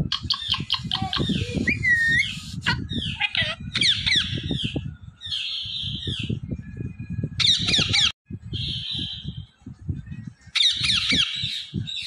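Parakeet squawks and rapid chattering chirps, coming in short bursts of about a second with brief pauses between them.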